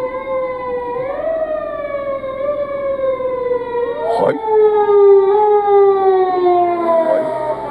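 Emergency vehicle siren wailing, heard from inside a car. Its pitch jumps up quickly about a second in and again about four seconds in, then slides slowly down each time.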